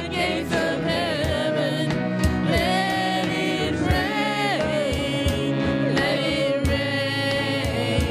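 Gospel worship music: voices singing long held, sliding notes over a full band with a steady drum beat.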